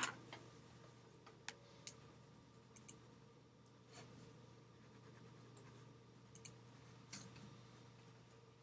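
Near silence: a steady low electrical hum with a handful of faint, scattered light clicks.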